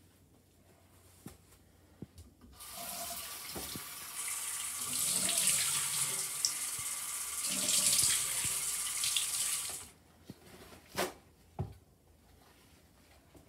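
Bathroom sink tap running while water is splashed onto the face with the hands. It starts about two and a half seconds in and is shut off about seven seconds later. A couple of short knocks follow.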